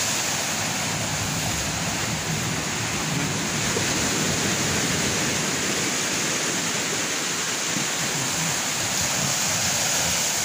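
Strong sea waves breaking and washing over a rocky shore: a continuous, steady rushing of surf.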